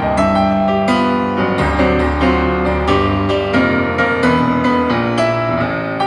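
Solo piano played live: a steady stream of notes and chords over held low bass notes.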